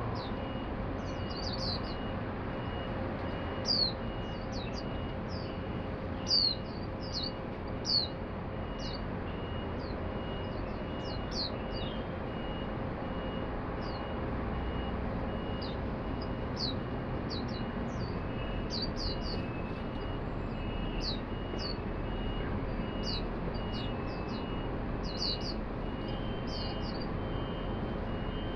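White-eyes giving short, thin, high calls again and again throughout, over a steady low hum of city background.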